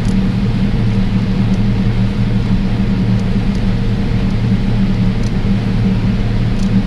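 Large harvest machine's diesel engine running at a steady speed: an even, unchanging drone with a few faint ticks.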